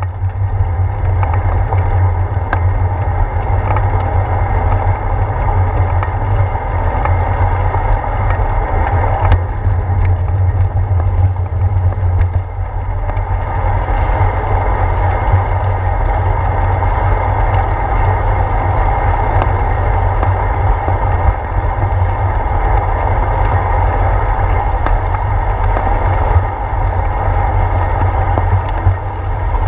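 Steady wind rumble and road noise from a bicycle rolling over wet pavement, picked up by a handlebar-mounted GoPro, with a few small knocks from bumps in the road.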